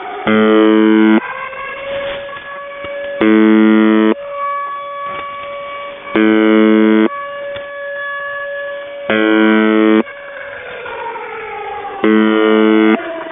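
UVB-76 'the Buzzer' heard over a shortwave radio: five harsh buzz tones, each about a second long, repeating about every three seconds. Between the buzzes a pirate's air-raid siren recording wails, rising and falling in pitch, jamming the channel.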